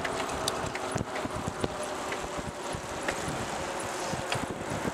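Bicycles rolling along an asphalt road, heard from a moving bike: wind buffeting the microphone over a steady rush of tyres, with scattered small clicks and rattles from the bikes.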